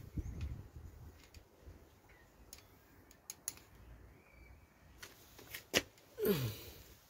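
A few sharp metallic clicks and taps from a hand tool working on a BMW N47 diesel engine, the loudest about six seconds in, followed by a short falling sound near the end.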